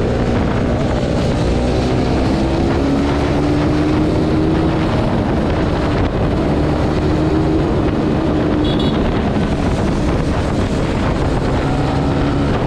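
Bajaj Pulsar NS200's single-cylinder engine running under way, heard from the rider's seat, its note rising and falling with the throttle. Wind buffets the microphone throughout.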